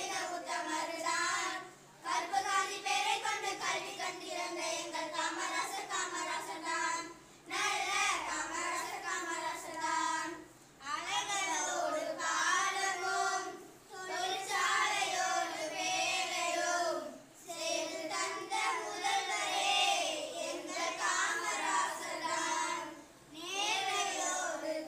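A small group of children singing a Tamil song together into a microphone, in phrases of about three seconds with short breaks between them.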